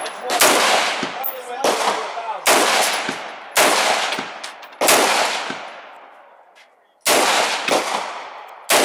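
Bushmaster AR-15 semi-automatic rifle in .223/5.56mm firing seven single shots, roughly one a second, with a longer pause of about two seconds after the fifth. Each crack is followed by an echo that fades over a second or more.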